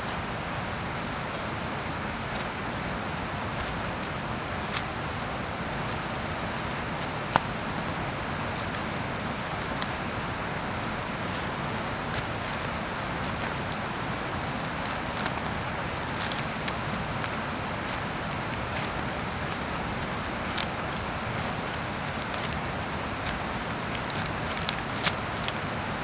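Steady rushing background noise, with faint, irregular clicks and scrapes from a knife shaving thin curls off a wooden feather stick.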